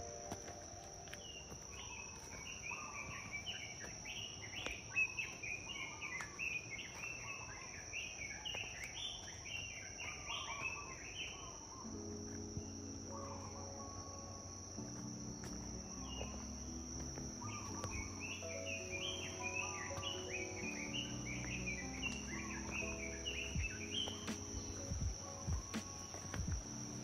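A steady high insect drone with birds chirping busily, in two long spells. Soft background music with held notes comes in about halfway through.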